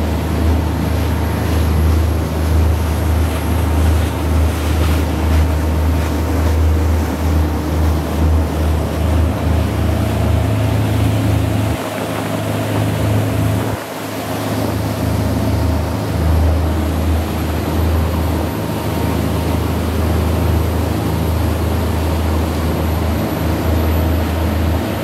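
A sportfishing boat's engines running steadily at speed, a low rumble with rushing wake water and wind over it. The rumble dips briefly twice around the middle.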